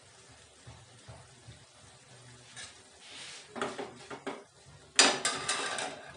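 Stainless steel plates and a ladle clattering: a few light clinks about three and a half seconds in, then a sudden loud clatter of metal on metal about five seconds in.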